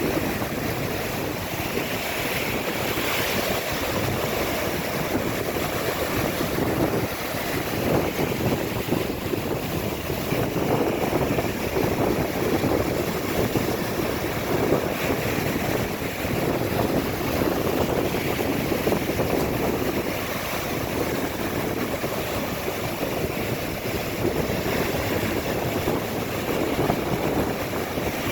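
Ocean surf breaking and washing up the beach, a continuous rushing that swells and eases in slow waves, with wind buffeting the microphone.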